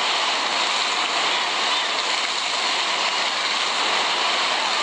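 Water jets of a floor fountain spraying up through the paving grates and splashing down onto wet stone: a steady hiss of falling water.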